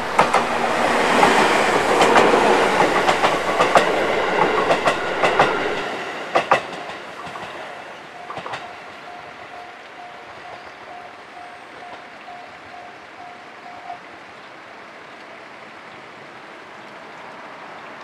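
JR Central 373 series electric limited express train passing close by, a loud rush of running noise with rapid clacks of the wheels over rail joints that dies away about six seconds in. A steady pulsing ring from the level crossing warning bell follows and stops about fourteen seconds in.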